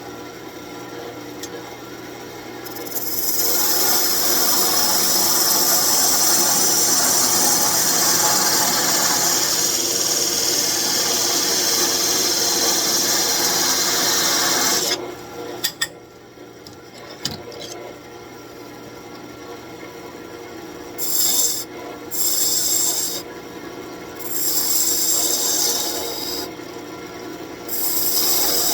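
Wood-turning gouge cutting into a birch branch spinning on a lathe, the tool hollowing a small bowl in the top. One long steady cut of about twelve seconds gives a loud, hissing scrape. It stops for a few seconds with some clicks over the lathe's low running hum, then comes several shorter cuts.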